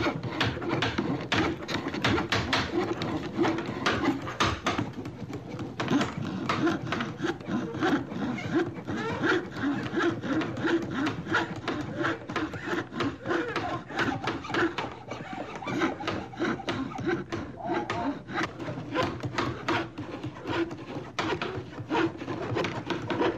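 Carpentry work on wood: hand-saw strokes and hammer knocks, with many sharp, irregular knocks throughout.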